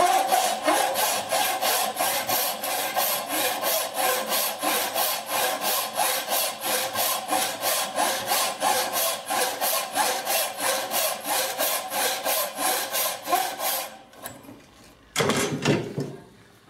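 Traditional Chinese frame saw ripping down into the end of a wooden workpiece to cut a tenon, in rapid, even strokes of about three a second. The sawing stops about fourteen seconds in, and a short scrape of the workpiece being handled follows.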